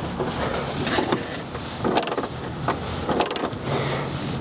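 Truck engine idling steadily with the hood open, with a few short clicks from a ratchet turning a 7 mm socket on the headlight beam-height adjuster.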